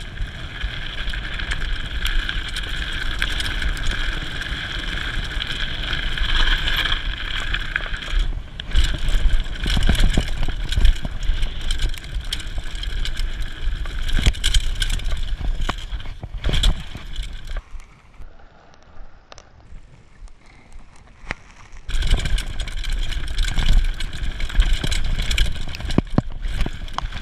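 Mountain bike descending a dirt and gravel forest trail: tyre noise and wind on the microphone, with the bike rattling and knocking over bumps. A steady high buzz runs through the first eight seconds and returns near the end, and the noise drops much quieter for a few seconds about two-thirds through.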